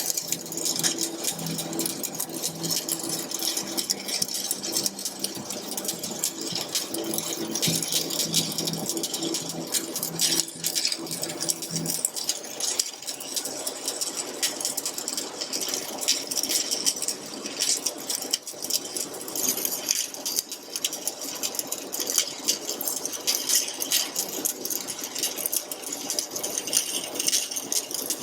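Stick (manual metal arc) welding: the electrode's arc crackling and sizzling steadily with a dense, fast crackle. A low hum underneath stops about twelve seconds in.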